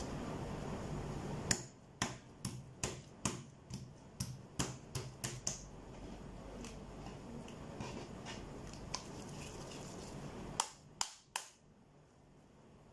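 Slime being pressed and stretched by hand, giving a quick run of sharp clicking pops, about three a second for a few seconds, then three more clicks near the end.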